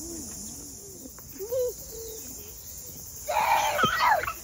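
A child's loud, high-pitched squeal or shout with sliding pitch, about three seconds in and lasting around a second. Before it there is a faint low call, rising and falling and repeating about twice a second, then a single louder call about one and a half seconds in.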